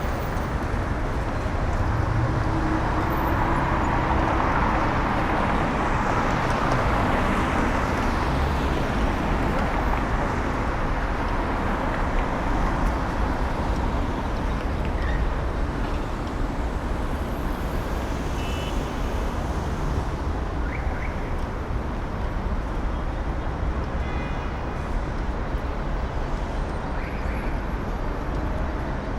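City street traffic: a steady rush of road noise from passing cars. A vehicle swells past in the first ten seconds or so, and a few faint short pitched sounds come through later.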